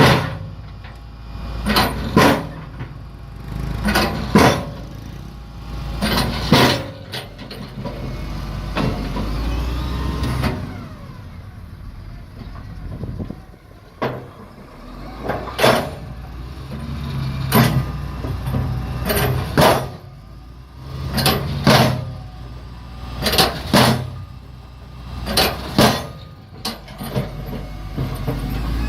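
Road-paving machinery: a heavy engine runs steadily under sharp, hissing bursts that come in quick pairs about every two seconds, with a quieter stretch in the middle.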